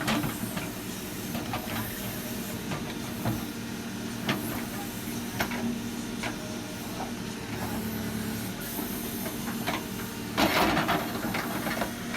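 Case 770FX backhoe loader's engine running steadily under work, with scattered knocks and a louder clatter about ten and a half seconds in.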